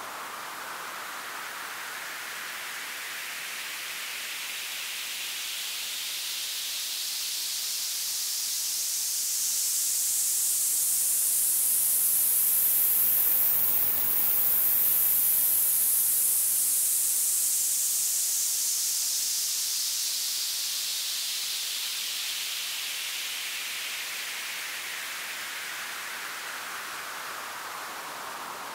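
White-noise sweep from a 3xOsc synth run through FL Studio's Fruity Free Filter, its cutoff frequency automated up and back down: a hiss that rises steadily in pitch and grows louder to a peak about halfway through, then falls back down the same way.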